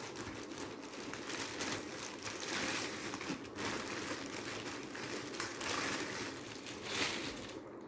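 Packaging and a tripod carry bag rustling and crinkling as they are handled and opened, with irregular crackles throughout.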